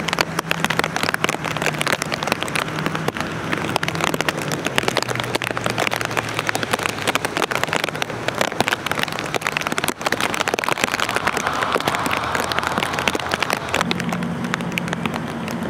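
Rain falling on wet pavement, a dense spatter of close drops hitting. A low steady hum runs underneath.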